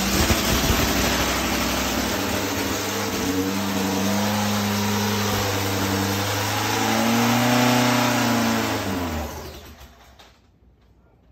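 Top Fuel motorcycle's supercharged nitromethane engine running in a warm-up with something wrong with it. It holds a steady speed, rises briefly about seven seconds in, then is shut off and winds down with a falling pitch about nine seconds in.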